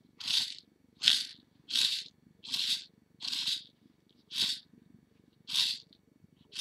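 Seed beads rattling and hissing in a small plastic box as a beading wire is dipped and scooped through them over and over to catch beads. Each scoop is a short rustle, about one a second.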